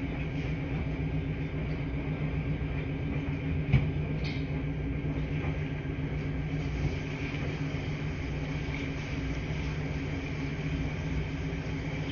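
Laundry machines running with a steady low hum, and one sharp click about four seconds in.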